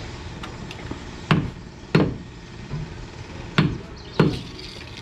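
Sharp knocks of a hand tool striking timber, four in two pairs with about two seconds between the pairs, like steady hammering or chopping on wood.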